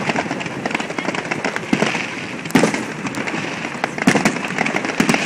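Fireworks display: shells and ground fountains going off in a dense run of cracks and pops, with louder bangs about two and a half and four seconds in.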